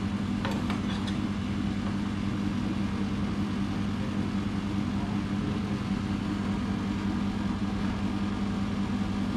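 Steady, even mechanical hum of a running kitchen appliance motor or fan, with a few light clicks about half a second to a second in as avocado halves are handled on the chopping board.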